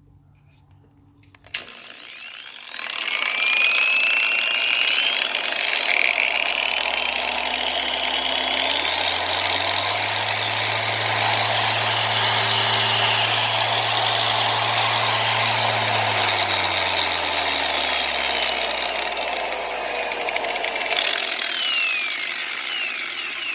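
Harbor Freight dual-action polisher running with its gear head not yet re-greased, switched on with a click about a second and a half in. Its motor and gear whine climb in steps through the variable speeds, hold at the top, then step back down before it is switched off near the end.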